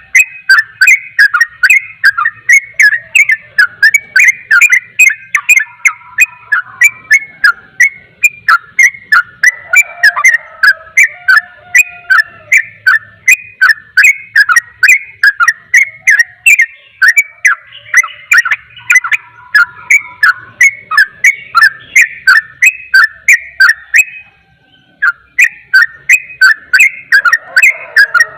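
Yellow-vented bulbul (trucukan) singing in rapid 'ropel' style: a continuous, loud run of short whistled notes, about three a second, with a brief break about 24 seconds in.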